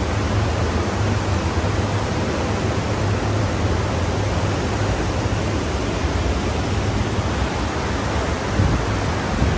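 Steady rushing wind noise across an open cruise-ship deck, with a low hum underneath.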